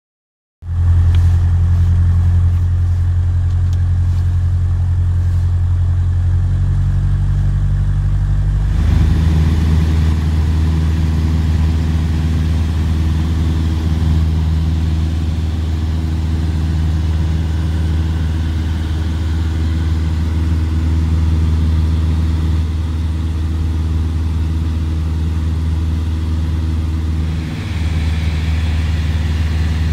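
Single-engine light aircraft's piston engine and propeller droning steadily in flight, heard from inside the cockpit. It starts suddenly about half a second in and dips briefly near the end.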